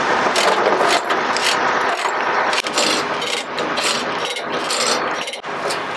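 Ratchet chain load binder being cranked tight on a tie-down chain, a fast run of metallic ratchet clicks with the chain rattling.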